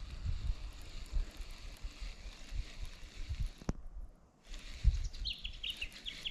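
A bird calls a rapid series of short, repeated descending chirps starting about five seconds in, over low thuds and rumble of wind and handling on the microphone.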